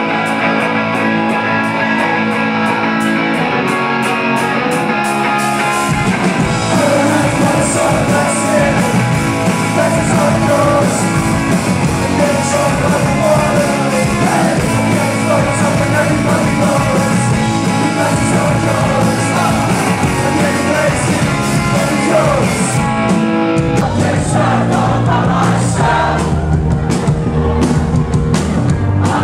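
Live rock band playing loud through the venue PA, heard through a camcorder's microphone in the crowd. It opens with fast, even ticks over guitar, then bass and drums come in about six seconds in under a singer's voice, and the low end grows heavier near the end.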